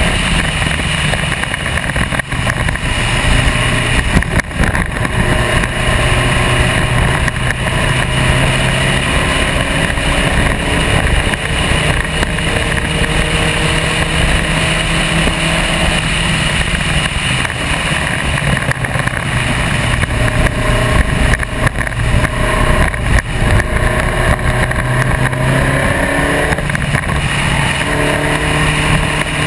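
SCCA Spec Racer Ford's four-cylinder race engine running hard on track, heard from the onboard camera. The engine note climbs repeatedly and drops back as the car accelerates, changes gear and slows for corners.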